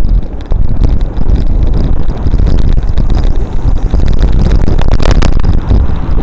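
Heavy wind buffeting and road-vibration rumble on a bicycle-mounted camera's microphone while riding, with a few sharp knocks or rattles about five seconds in.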